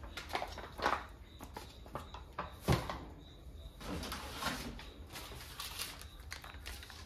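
Groceries being set down on a kitchen counter: a few light knocks, the loudest a little under three seconds in, and a stretch of plastic packaging rustling around four seconds in.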